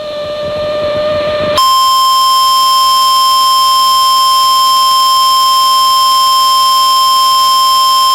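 NOAA Weather Radio warning alarm tone: a single loud, steady, high-pitched tone that comes in about a second and a half in and holds unchanged, signalling that a warning message follows. Before it there is a short stretch of hiss with a lower hum.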